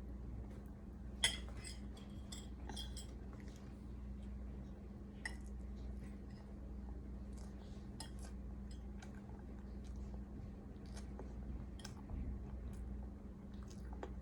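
Cutlery clinking against dishes: one sharp ringing clink about a second in, then scattered lighter clicks and taps, over a steady low hum.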